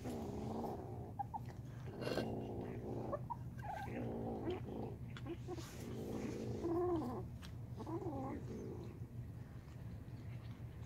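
Cat giving low, drawn-out, wavering yowls, about five of them roughly every two seconds.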